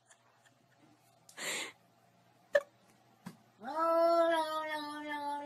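Cat yowling: one long, low, drawn-out call of about two seconds near the end, with a short breathy noise and a couple of faint clicks before it.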